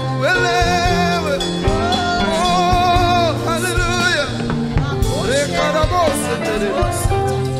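Live gospel worship music: singers hold long, wavering notes over a band with bass and drums.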